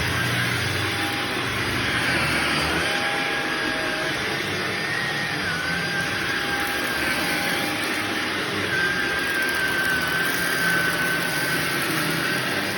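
Shark vacuum cleaner running on a shag rug: a steady rushing suction noise with a thin motor whine that wavers slightly in pitch.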